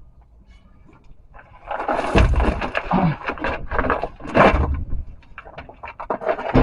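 Metal scraping and clunking as the steel gas tank is shoved and turned into place under the truck bed: a series of loud grinding scrapes with a couple of short falling squeals, then a quick run of clicks and knocks, and another scrape near the end.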